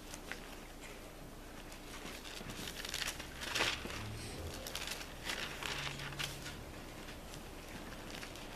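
Thin Bible pages rustling and being turned in several short flurries, the loudest about three and a half seconds in, as the passage is looked up.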